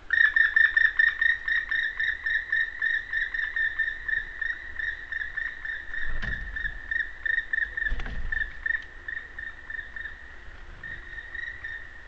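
Black woodpecker calling: a long, fast series of identical clear notes, about five a second, slowly fading over about ten seconds. Two dull low thumps sound about six and eight seconds in.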